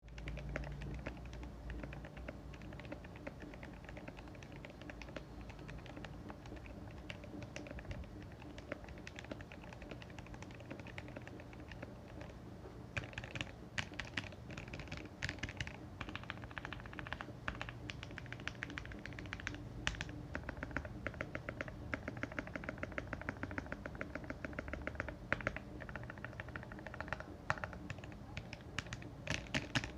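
Typing on a GMMK Pro mechanical keyboard fitted with lubed Gateron Brown tactile switches and tuned, lubed stock stabilizers: a quick, continuous run of keystrokes, with a few louder clusters of strokes.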